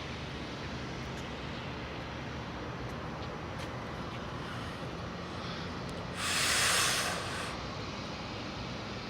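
Freight train running past with a steady rumbling noise, and a sharp hiss about six seconds in that lasts just over a second.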